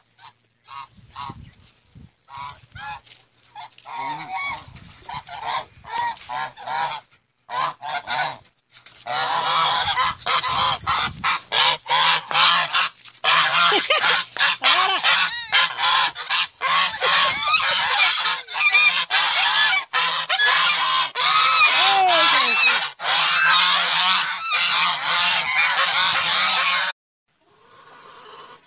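A flock of domestic geese honking. At first the calls come scattered, then about nine seconds in many geese call at once in a loud, continuous chorus of overlapping honks, which cuts off suddenly near the end.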